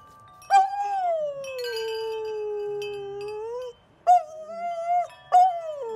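Golden retriever howling along to ringing metal tube wind chimes. The first howl slides down in pitch and is held for about three seconds, then a shorter howl follows about four seconds in, and another starts near the end, with the chimes clinking and ringing underneath.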